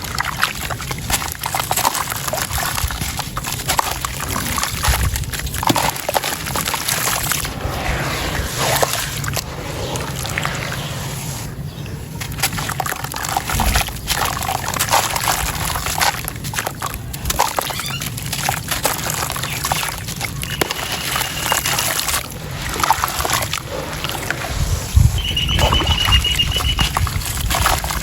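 Gritty sand-and-stone chunks crumbling into a bowl of water, with a steady run of small crunches and crackles mixed with sloshing and pouring water.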